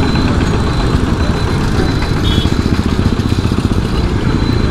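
Engines of many motorcycles and scooters crawling in slow, congested traffic, a steady low rumble.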